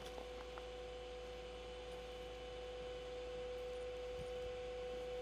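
A faint, steady hum: one constant tone with fainter steady tones above and below it over a light hiss, and a few faint clicks right at the start.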